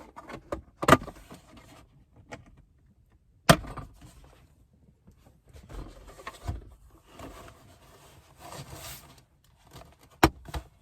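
Plastic inner panel of a car's center console lid being pried free of its retaining tabs: handling, scraping and creaking, with three sharp snaps, about a second in, at three and a half seconds and near the end, as the tabs let go.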